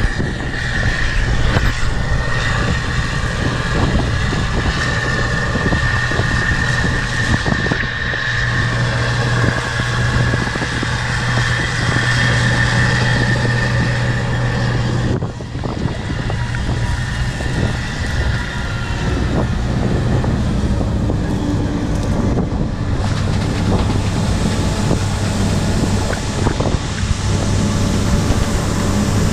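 Case IH 2188 combine harvester running steadily while harvesting wheat: a steady engine hum under a high mechanical whine, which drops away about halfway through while the engine keeps running.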